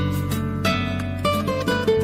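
Background music led by a plucked guitar, picking a melody over a steady bass.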